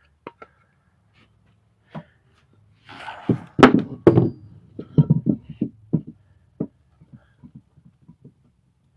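Wooden boards knocking and thunking as they are handled and set down, with a brief scrape about three seconds in, a cluster of loud irregular knocks, then a few lighter taps near the end.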